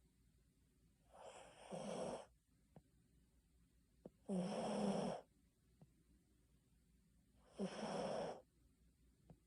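A Basenji dog snoring in its sleep: three snores about three seconds apart, each about a second long, with quiet between them.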